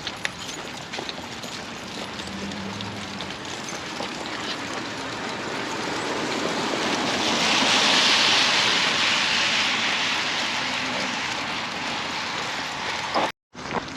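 A vehicle passing by, its tyre and road hiss swelling to a peak about eight seconds in and then fading away. The sound cuts out for a moment near the end.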